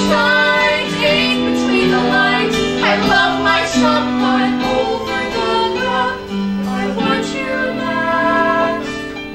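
A live musical-theatre song: a woman singing a melody over instrumental accompaniment, dropping in level near the end.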